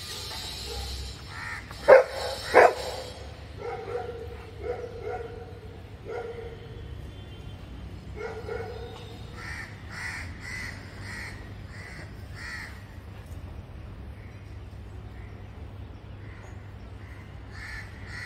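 A dog barks twice in quick succession about two seconds in, the loudest sounds here, while crows caw repeatedly in short evenly spaced calls, most densely around the middle.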